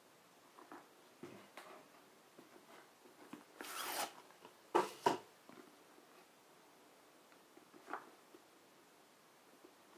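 Cardboard packaging of a Blu-ray box set being handled: soft taps and rustles, a scraping slide of cardboard on cardboard about four seconds in, then two sharp knocks a fraction of a second apart, and a lighter tap near the end.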